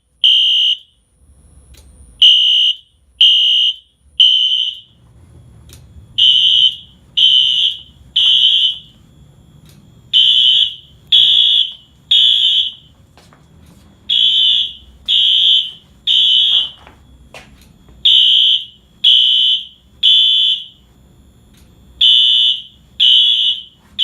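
Two Wheelock fire alarm horn strobes, an NS and an AS, sounding together in sync with a loud, high-pitched electronic horn tone. The blasts come in the temporal-three pattern: three short blasts, a pause, then three again, repeating about every four seconds. This is the standard fire evacuation signal.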